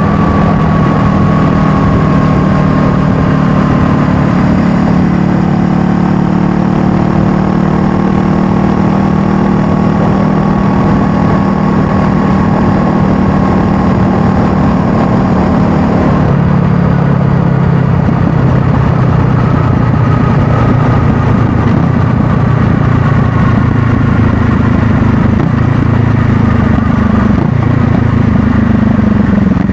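Honda Rebel 500's parallel-twin engine running under way, its pitch sinking slowly as the bike slows, dropping suddenly about halfway through, then climbing again near the end as it picks up speed.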